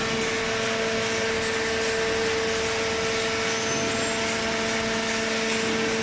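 Hydraulic waste paper baler's motor and pump running steadily: an even machine drone with a constant two-pitch whine over a broad hiss.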